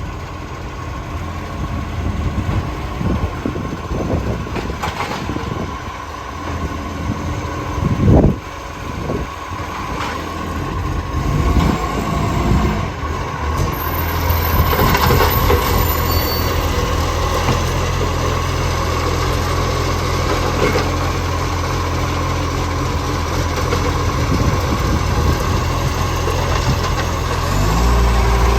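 Garbage truck engine running steadily; the truck has an exhaust leak. There is one short loud sound about eight seconds in, and the engine grows louder near the end.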